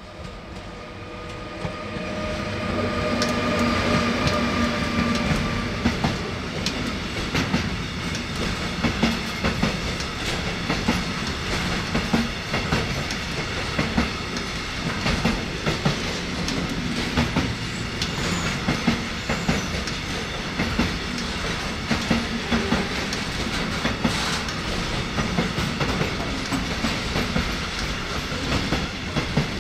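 A long container freight train hauled by an electric locomotive passes close by. The locomotive's tonal hum grows louder over the first few seconds, then the container wagons roll past with a steady rush and a regular clickety-clack of wheelsets over the rail joints and switches.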